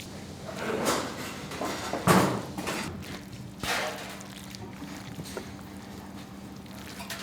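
Commercial kitchen work: a steady machine hum under several irregular clattering, sloshing handling noises, the loudest about two seconds in.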